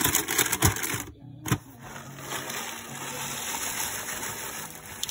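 A hand rustling inside a cardboard granola box, then granola pouring out of the box in a steady stream onto a bowl of cooked apple pieces.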